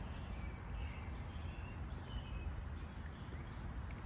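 A few faint short bird chirps over a steady low background hum of outdoor ambience.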